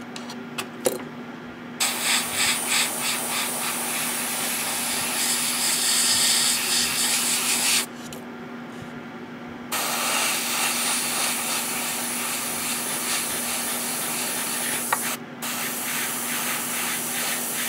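Gaahleri GHAD-39 airbrush spraying paint at low pressure: a steady air hiss that starts about two seconds in, stops for about two seconds near the middle as the trigger is let off, and breaks off again very briefly near the end.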